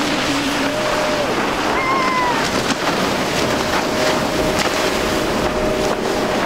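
Single Suzuki 300 hp four-stroke V6 outboard on a Wellcraft center console running at speed, with the hull's wake and spray hissing steadily. A short pitched tone sounds about two seconds in.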